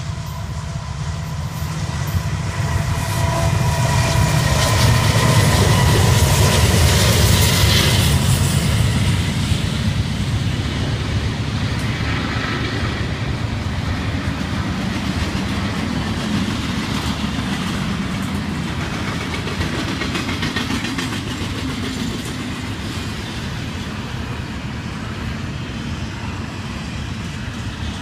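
Freight train passing at close range, led by an EMD SD60 diesel locomotive. The locomotive's diesel rumble builds to its loudest about five seconds in as it goes by. Then a long string of double-stack intermodal container cars rolls past with steady wheel noise on the rails.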